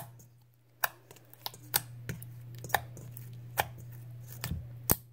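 Spatula mixing food coloring into clear slime in a stainless steel bowl: sharp clicks and taps of spatula and slime against the metal at irregular intervals, about eight of them, the loudest near the end.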